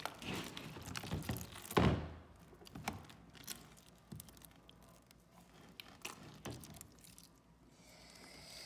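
Hands kneading and squishing a large batch of sticky glue-and-borax slime in a plastic tub: soft, irregular wet clicks and squelches, with a louder squelch about two seconds in.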